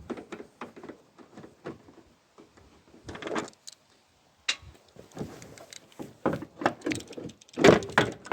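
Clicks, knocks and scrapes of hand work on a van's front wing as Torx fixings and a plastic cover are undone and pulled off. There is a sharp click about halfway through and a louder burst of knocking near the end.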